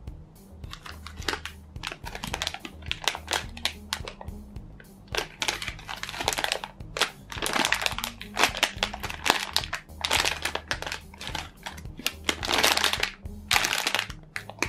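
Clear plastic packaging crinkling and crackling as hands hold and squeeze bagged foam bread squishy toys, over background music.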